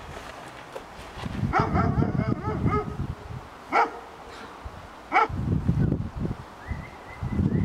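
A dog barking: a quick run of yips, then two single sharp barks more than a second apart.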